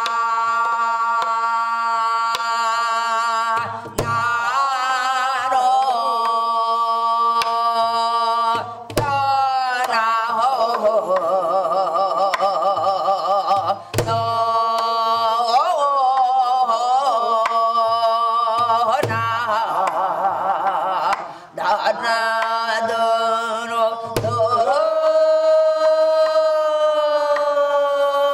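Korean gueum, melodic vocables sung in long held notes with wide, wavering vibrato, over slow janggu drum strokes: low thumps every couple of seconds and an occasional sharp crack.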